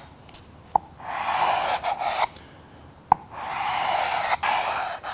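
Sandpaper on a wooden sanding block being rubbed along the edge of a wooden box lid by hand, in three rasping strokes of about a second each with short pauses between, lightly softening the sharp edge. Two light taps, one near the start and one about three seconds in.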